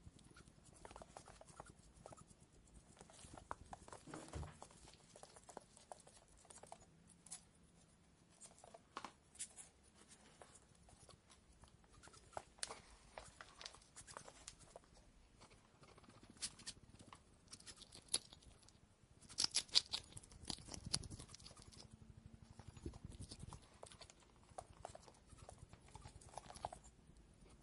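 Hedgehog making faint, irregular short clicks and small noises, with a louder flurry of sharp clicks about three-quarters of the way through.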